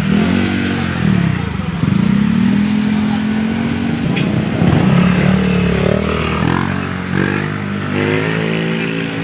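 Close street traffic: motorcycle engines running and revving as they pass one after another, their pitch rising and falling over the general rumble of cars.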